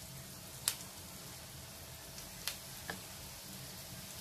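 Samosa rolls frying in hot oil in a pan: a faint steady sizzle, broken by three sharp clicks, the loudest about two-thirds of a second in.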